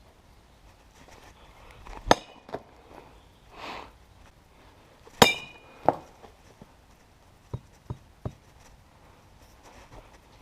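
A series of hard knocks as the cheap sneakers are struck in the teardown: two loud blows about three seconds apart, each with a brief ring, then several lighter knocks.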